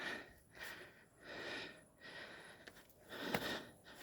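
A hiker breathing hard and fast from climbing uphill: a run of short, hissy breaths in and out.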